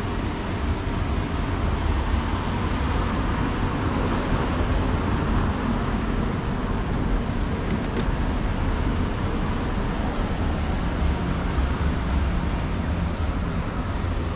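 Steady city traffic noise with a continuous low rumble.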